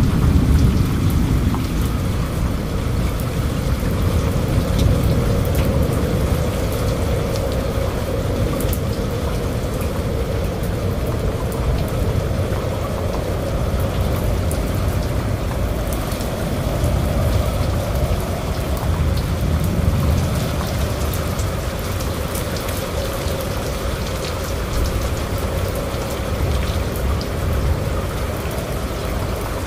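Heavy cyclone rain falling steadily, over a low rumble that swells and eases every few seconds.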